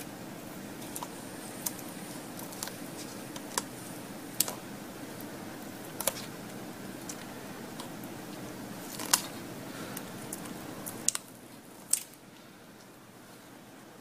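Small plastic clicks and taps as hands handle and fit a small black plastic box on a bundle of thin wires and a ribbon cable, about a dozen scattered clicks with the sharpest about nine and twelve seconds in. A steady background hum runs under them and drops away about eleven seconds in.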